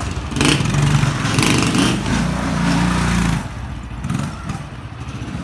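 Small step-through motorcycle engine revved up as the bike pulls away, running at high revs for about three seconds, then easing back to a lower, quieter run.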